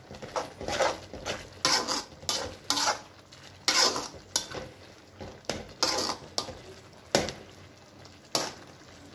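Wooden spatula stirring noodles in a metal kadai, scraping and knocking against the pan in about a dozen short, irregular strokes.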